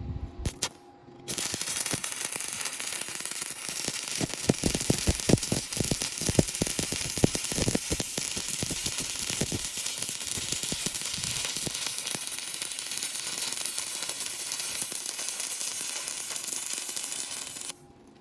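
Electric welding arc crackling and sizzling steadily as a horizontal (2F) fillet weld is run. The arc strikes about a second in, pops sharply and often between about four and ten seconds in, and cuts off suddenly near the end.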